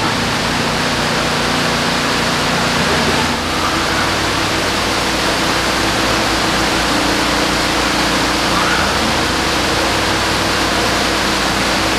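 Steady rush of water pumped into and circulating through fish-farm tanks, with a low hum of pump motors underneath.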